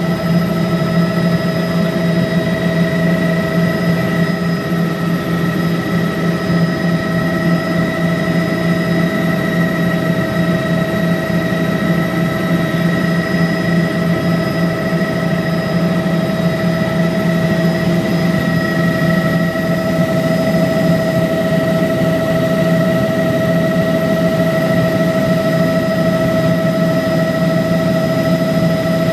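Helicopter in flight heard from inside its cabin: a steady, loud engine and rotor drone with several constant high tones over it.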